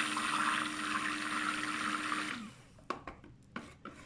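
Immersion stick blender running in liquid soap batter: a steady motor hum with a churning, splashing hiss. It cuts off about two and a half seconds in, followed by a few soft knocks.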